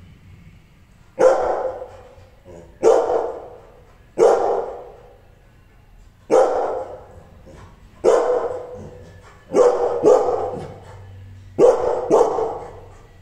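Angry rottweiler barking: about nine loud single barks a second or two apart, the later ones coming in quick pairs.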